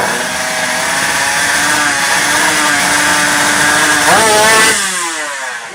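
Two-stroke underbone drag bike engine running flat out at high revs with a raspy, steady tone. About four seconds in the pitch climbs sharply, then it drops and fades.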